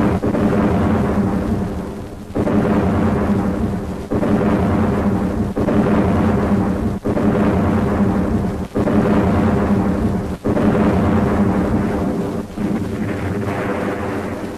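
Battle explosions from a film soundtrack: a run of heavy blasts about every one and a half to two seconds, each starting abruptly and trailing off in a long, deep rumble.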